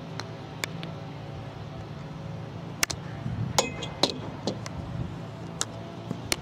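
Field hockey stick striking the ball in a series of sharp, irregular clicks as the player dribbles and hits through the cone drill, the loudest a little past the middle. A steady low hum runs underneath.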